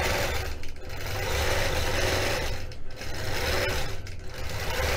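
Gammill Statler Stitcher computerized longarm quilting machine stitching: a steady motor hum under the rapid run of the needle, briefly quieter about three times.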